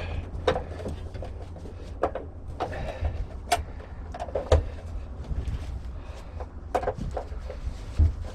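Irregular light clicks, knocks and rustling of hands fitting parts around the wiring connection on top of an electric water heater, over a steady low rumble.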